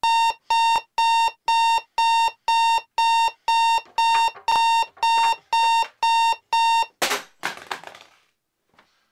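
Electronic alarm clock beeping, about two short beeps a second, each a single high tone. The beeping stops about seven seconds in and is followed by a brief clatter and rustle, as the sleeper reaches over and shuts it off.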